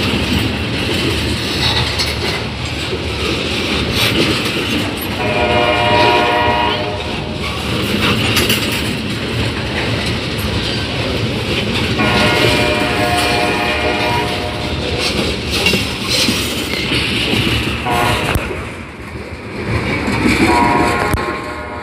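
Freight train of tank cars rolling past close by, the wheels rumbling and clacking over the rail joints. Over it a diesel locomotive horn sounds the grade-crossing signal: two long blasts, a short one, then a long one.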